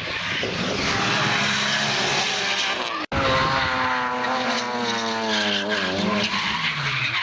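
Drift car engine at high revs with tyre squeal from the slide. The sound cuts out for an instant about three seconds in, then the engine note falls steadily over the next few seconds.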